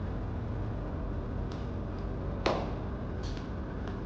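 Steady low room hum with a few light knocks, the clearest about halfway through.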